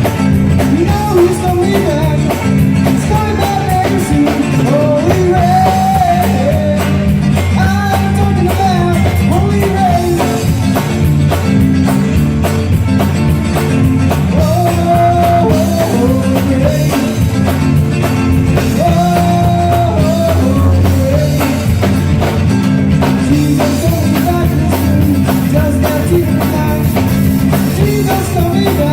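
Music: a song with a sung melody over a steady, continuous band accompaniment.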